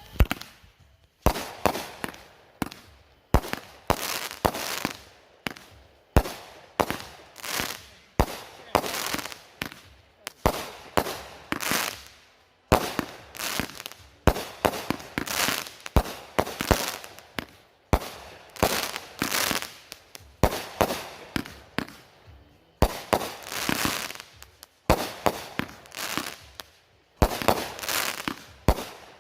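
Two 'Current Events' consumer firework cakes firing a long run of shots, about one a second. Each shot is a sharp launch thump followed by a second-long burst overhead. There is a brief pause about 22 seconds in.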